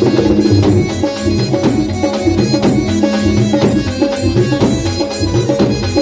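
Dhol drumming in a qawwali rhythm: fast, evenly repeating strokes over held musical notes.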